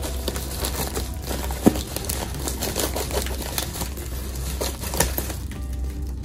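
A plastic mailer crinkling and crackling as it is handled and cut open with scissors, with irregular sharp crackles over a steady low hum.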